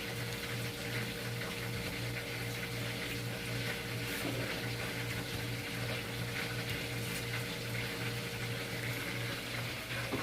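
Lumpia shanghai frying in hot oil: a steady sizzle over a steady low hum.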